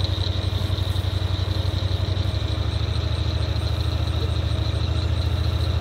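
Low, steady rumble of an idling engine, pulsing quickly and evenly, with a steady high-pitched drone above it.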